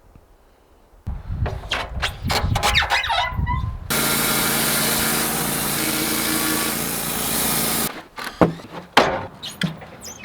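Bandsaw sawmill in use: a few seconds of clanks and knocks, then the mill's engine and blade running steadily through the log for about four seconds before cutting off suddenly, followed by more knocks of wood and metal.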